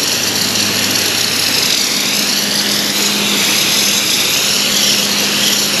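Compressed-air gravity-feed spray gun spraying gelcoat onto a fiberglass mold: a steady, loud hiss of air, with a low steady hum beneath it.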